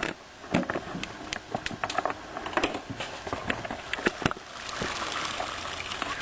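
Irregular clicks and knocks of a colander and pot handled in the sink while spaghetti drains, with a short rushing hiss from about four and a half seconds in.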